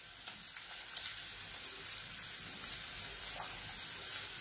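Mortadella frying in a pan on a gas stove: a steady, fairly quiet sizzle with a few faint clicks.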